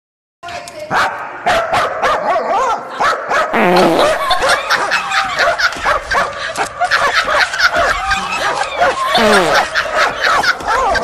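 A dachshund barking and yipping rapidly, with almost no break, starting about half a second in.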